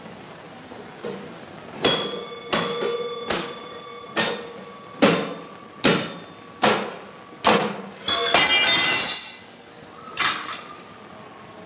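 Ringing metallic strikes from a brass utensil being worked by hand: eight even knocks a little under a second apart, each leaving a ringing tone. They are followed by a short jangling rattle and one last knock.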